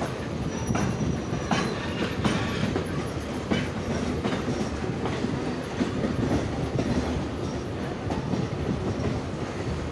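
Container freight train rolling past close by, a continuous rumble of its wagons' wheels on the rails with scattered sharp clacks over the rail joints.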